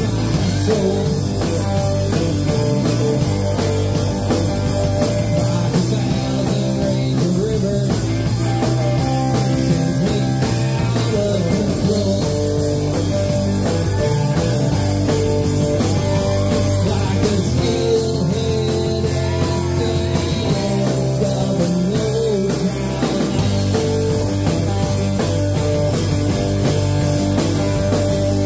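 Live rock band playing steadily: electric guitars, an acoustic-electric guitar, bass guitar and drum kit.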